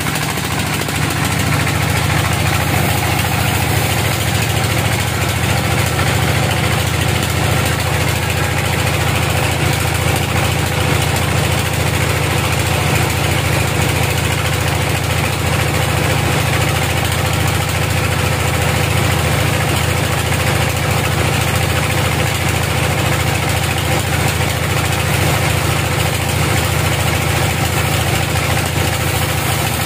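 Band sawmill machinery running steadily: an unbroken low mechanical drone with a few steady tones over it.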